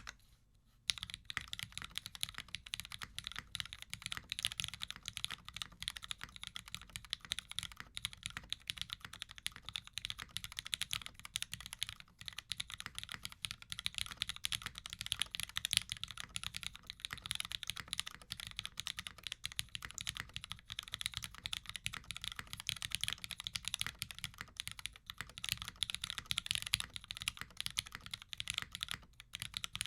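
Continuous fast typing on a mechanical keyboard with lubed and filmed Cherry MX Black linear switches, GMK keycaps and an aluminum full plate, a dense stream of key clacks starting about a second in.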